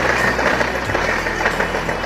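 Background music over a steady low mechanical rumble.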